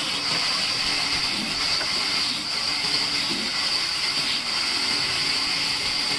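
Large vertical band saw running and cutting through a thick block of wood: a steady high hiss that holds without a break.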